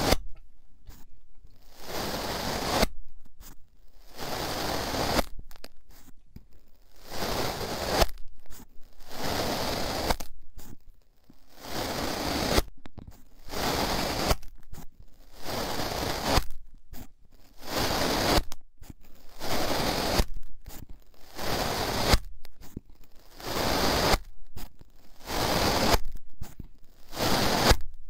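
Metal tube pushed down into kinetic sand and drawn back out, over and over: a grainy crunching scrape of about a second each, roughly every two seconds, with short quiet gaps between.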